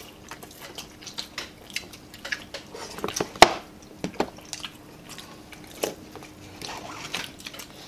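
Close-up eating sounds: people chewing and smacking on boiled beef bone marrow and shank meat, with scattered clicks and knocks from bones and dishes being handled. One sharp knock about three and a half seconds in is the loudest.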